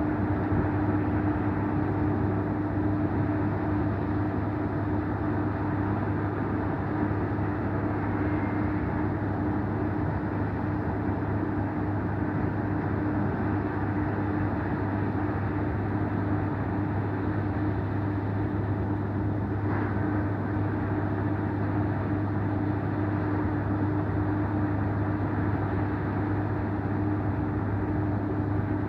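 Steady mechanical drone with a constant low hum from heavy construction machinery at a shaft excavation site, mixed with surrounding road traffic.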